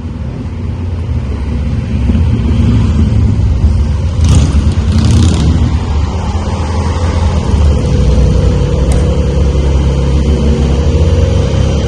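An engine running steadily with a loud, low rumble, with a brief hiss twice about four to five seconds in.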